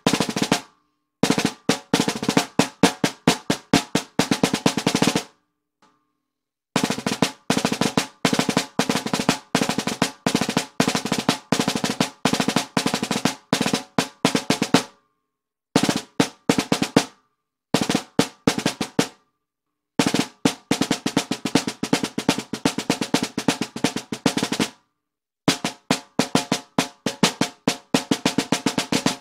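Baldassare M1455LR 14 x 5.5-inch stainless-steel marching snare drum played with wooden sticks: fast runs of strokes and rolls in phrases, broken by short silent pauses, about six times.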